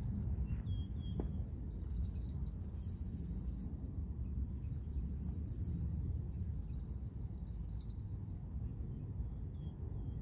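Spinning reel being cranked while a hooked fish is reeled in, a steady high whir that breaks off briefly about four seconds in, over a low steady rumble.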